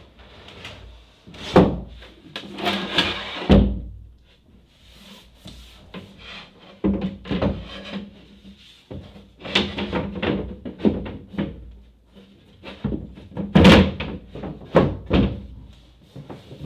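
A large plywood panel being handled and fitted into place by hand: a series of wooden knocks and thunks in several clusters, with some scraping between them, the heaviest hits about three and a half and fourteen seconds in.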